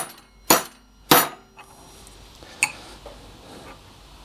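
Hammer striking the steel quill of a Grizzly G7945 drill press to drive a spindle bearing into it: three sharp metallic blows about half a second apart with a brief ring after each, then a pause with a lighter clink a little after the middle.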